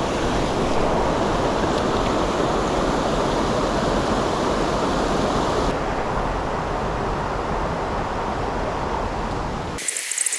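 Steady rushing noise of fast-flowing creek water. Just before the end the sound changes abruptly, losing its low rumble and turning thinner and hissier.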